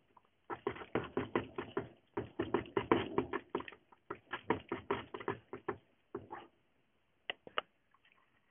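Rapid clicking and tapping from a hamster moving about in a plastic exercise wheel, in bursts of a second or two, thinning to a few single clicks near the end.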